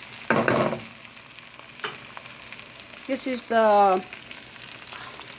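Chopped garlic and green onion bottoms sizzling in hot canola oil in a pan, a steady frying hiss. About half a second in, a short louder burst of stirring in the pan.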